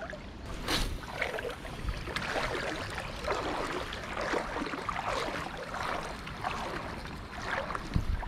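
Shallow creek water sloshing and splashing in uneven surges, with a brief knock near the end.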